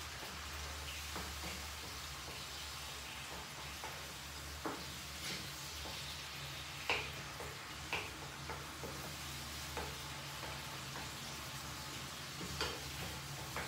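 Red sauce frying gently in a frying pan while a wooden spatula stirs it, with a faint sizzle and now and then a light click or scrape of the spatula against the pan, over a steady low hum.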